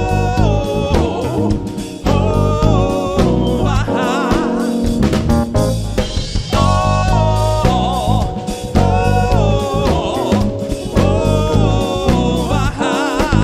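Live funk-soul band playing, with drum kit and bass holding a steady beat under a melody line that bends and wavers in pitch.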